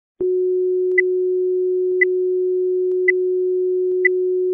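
Video countdown leader's electronic tones: a steady mid-pitched sine tone starting just after the beginning, with a short, higher beep about once a second, four times.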